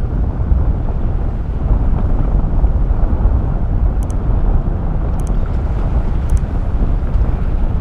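Wind buffeting the microphone as a loud, steady low rumble. Three short mouse-click sound effects about a second apart, starting about four seconds in, as the on-screen subscribe buttons are clicked.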